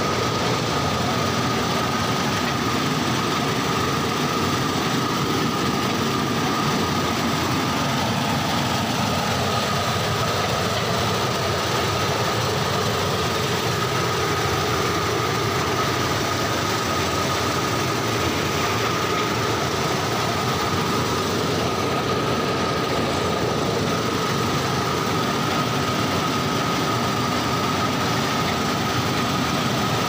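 Combine harvester running at full speed in second high gear through wheat, heard from the operator's platform. The engine and threshing machinery make a steady, dense noise with a steady high whine over it.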